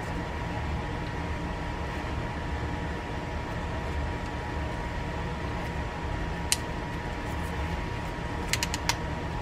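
Small sharp clicks from a Browning SFS 10 spinning reel as its anti-reverse switch is worked by hand: one click about six and a half seconds in, then a quick run of about four clicks near the end. A steady room hum with a faint constant tone runs underneath.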